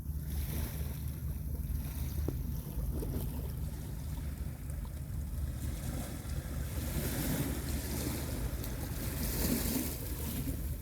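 Gentle sea waves washing onto the beach, with wind rumbling on the microphone; the wash swells into a louder hiss about seven seconds in.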